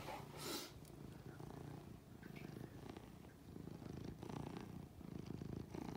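Black domestic cat purring steadily, close to the microphone, the purr swelling and fading every second or so. A brief rustle near the start.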